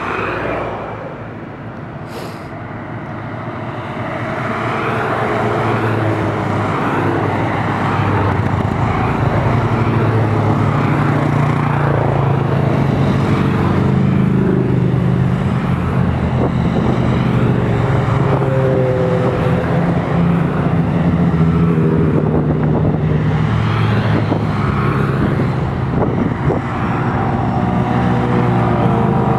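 A stream of motorcycles, sport bikes and a cruiser among them, riding past one after another, their engines blending into a steady hum. The engine noise swells over the first few seconds as the bikes come up, then stays even as they keep passing.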